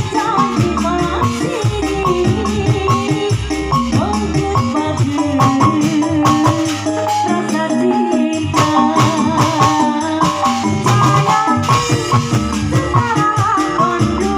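Instrumental band music with a steady beat, rattling percussion, a bass line and a melody line on top; the bass drops out briefly about seven seconds in.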